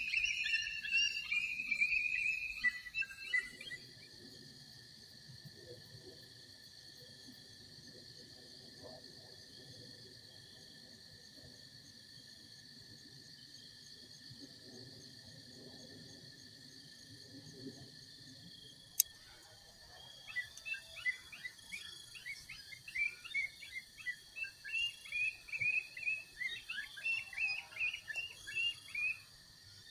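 Outdoor dusk ambience: a steady high insect trill, typical of crickets or katydids, with runs of quick chirping calls in the first few seconds and again through the last ten seconds. A single sharp click comes about 19 seconds in.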